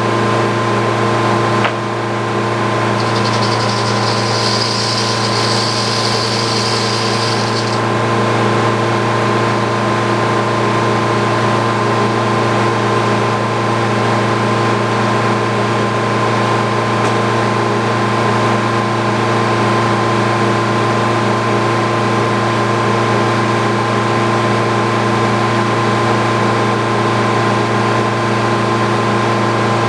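Frick sawmill and the engine that drives it, running steadily at one even pitch. For a few seconds near the start a high hiss joins in.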